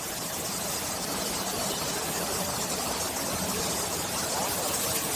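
Steady factory-floor noise from machine tools running in a machining workshop: an even hiss with a low hum, and a faint distant voice in the later part.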